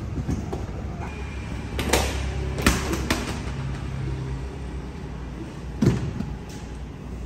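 Sharp thumps and knocks of inflatable rubber ride-on horse toys being pushed over and clambered on, on a wooden floor: a cluster of about three two to three seconds in and one more just before six seconds in.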